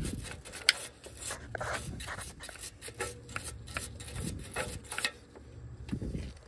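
Nylon brush scrubbing the upstream O2 sensor's mounting surface on the exhaust pipe, quick irregular scratchy strokes that loosen debris before the new sensor goes in. The strokes stop about five seconds in.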